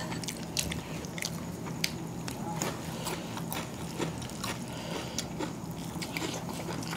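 Close-miked eating sounds of people eating biryani rice by hand: scattered soft clicks and smacks of chewing and of fingers working the rice, over a faint steady low hum.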